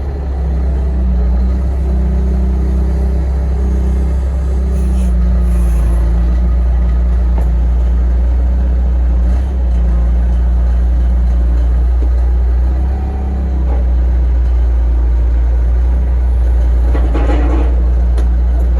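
A large engine running steadily with a deep, unbroken drone, probably machinery pulling sawmill pillars out of the ground. A short rattling, scraping noise comes near the end.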